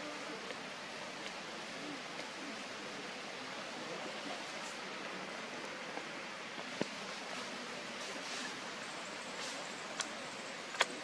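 Steady outdoor background hiss with no clear source, broken by a few sharp clicks: one just past the middle and two close together near the end.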